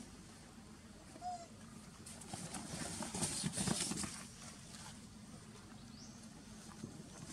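Rustling and scuffling, loudest in the middle, as macaques scramble over a canvas tarpaulin umbrella. A short high chirp comes about a second in.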